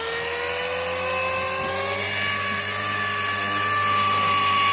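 KDS 450 SV electric RC helicopter's motor and rotor whining, rising in pitch for about the first two seconds, then holding a steady pitch as it grows louder.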